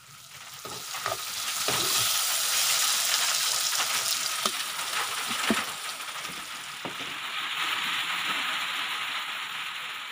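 Bottle gourd and potato pieces sizzling as they fry in a kadai, a steady hiss that swells in about a second in and eases off near the end. A few sharp clinks and scrapes of a ladle sound over it.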